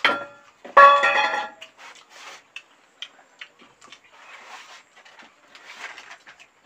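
Soft eating sounds of people eating rice and fish with their hands: faint clicks, smacks and chewing. About a second in, a loud pitched call lasting under a second rings out over them.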